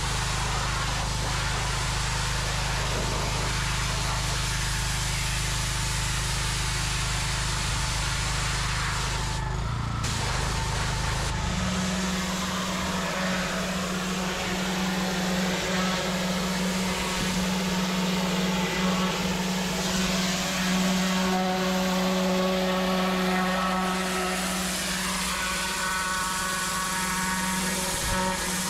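Pressure washer running, its lance jet spraying water with a steady hiss over the drone of the machine. About ten seconds in the sound changes to a different steady drone, with the jet now from a turbo nozzle.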